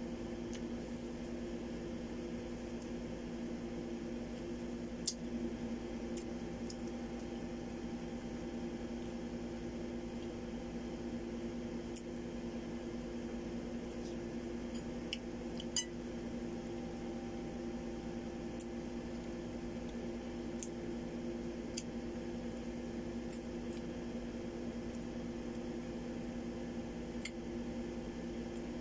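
A steady low hum with a few held tones, over which come a handful of faint sharp clicks and small squishy eating noises as mango is picked at and bitten by hand.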